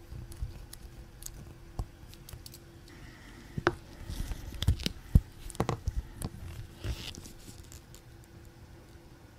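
Small, sharp clicks and taps of steel watchmaking tools against brass pocket-watch plates and parts, with a run of louder taps in the middle.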